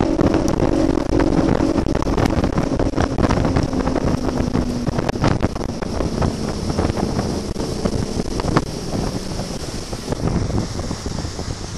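Allison XB-21 bass boat under way, its outboard engine note fading after the first couple of seconds beneath wind buffeting the microphone and water rushing past the hull, with many short gusty knocks. The overall level slowly drops.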